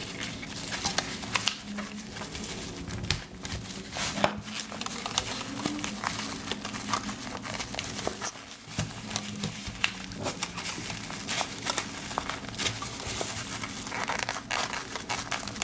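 Fabric organizer pouch rustling and scraping as a Swiss Army pocket knife is worked into a tight slot, with many small clicks and knocks of handling throughout.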